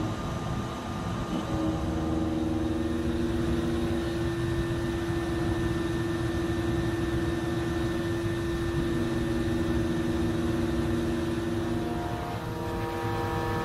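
5-axis CNC milling machine cutting a car crankshaft: a steady machining hum with several sustained tones that shift in pitch a few times, over a constant noisy wash.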